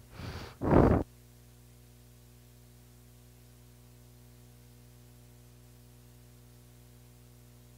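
A short burst of a voice, then about a second in the sound cuts off abruptly to a faint, steady electrical mains hum with its overtones.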